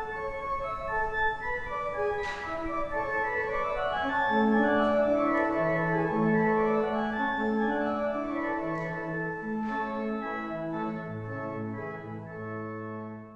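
Church organ playing slow, held chords; lower notes come in about four seconds in, and a deeper bass note sounds near the end.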